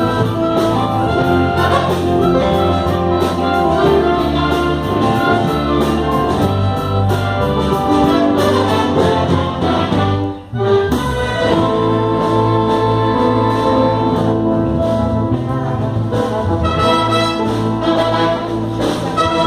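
A brass band playing, with trumpets and trombones carrying the tune. The music breaks off for a moment about halfway through, then starts again.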